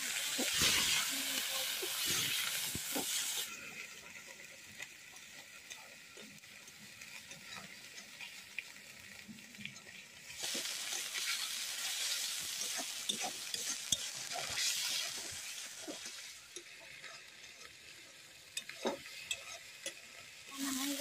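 Sliced onions sizzling in hot oil in an aluminium kadai, stirred with a metal spatula that scrapes and taps against the pan. The sizzle is loud for the first few seconds and again from about ten seconds in, quieter in between.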